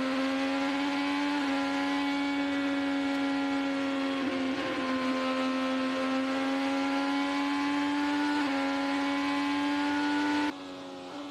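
IndyCar's Chevrolet 2.2-litre twin-turbo V6 at full throttle on an oval, heard onboard: a loud, steady high-revving engine note with small dips in pitch, over rushing wind. The sound drops suddenly about ten seconds in.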